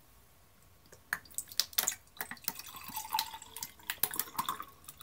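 Water pouring from a plastic bottle into a tall glass flute, starting about a second in with splashes and drips, then a steady trickle into the glass.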